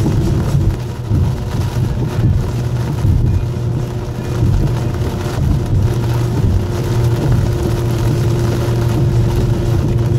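Steady road and engine noise inside a moving car's cabin, with tyre noise from the rain-wet highway.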